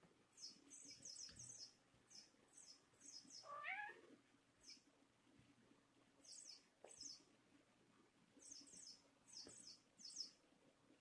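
A Thai cat gives one short meow that rises in pitch about four seconds in. Around it come quiet clusters of brief scratchy strokes as a Thai kitten gnaws and licks a plush toy mouse.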